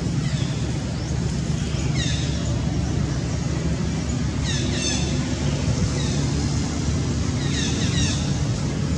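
A steady low hum of a motor vehicle's engine running. Short, high, falling chirps sound over it every two or three seconds.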